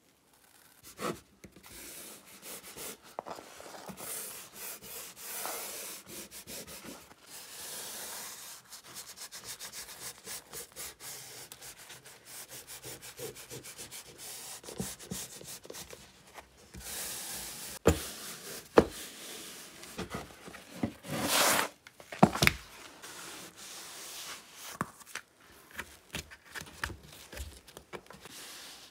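Hand work rubbing and scraping over a surface, with many small clicks and knocks throughout. There are two sharp clicks about 18 seconds in, and a short, louder rasp a few seconds later.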